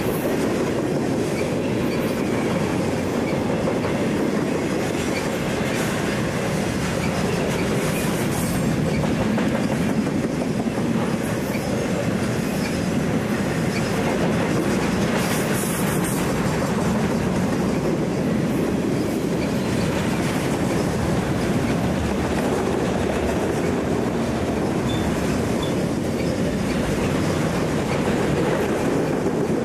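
Conrail intermodal train of highway trailers on flatcars rolling past at close range: a steady rumble of steel wheels on the rails as car after car goes by.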